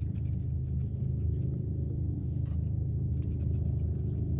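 A boat motor running with a steady low hum, with a few faint clicks over it.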